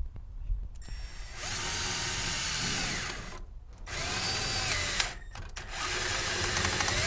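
Power drill driving screws to secure an LED kit's ballast inside a drink cooler, in three runs with short pauses between, the motor whine climbing in pitch as each run starts.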